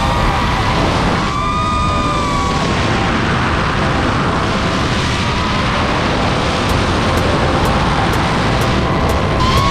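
Racing-drone propellers whining, their pitch rising and falling as the throttle changes, over a loud rush of air during a dive.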